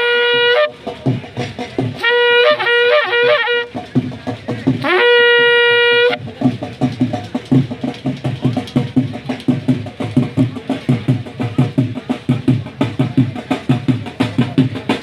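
A wind instrument sounding loud, long held notes, each sliding up into a steady pitch, the middle one broken into quick ornaments. About six seconds in, a drum takes over, beaten in a fast steady rhythm.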